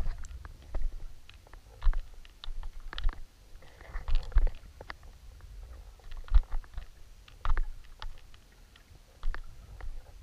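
Underwater sound of a camera moving along a stony, shell-covered lake bed: irregular clicks and knocks over a low rumble of water moving past the housing.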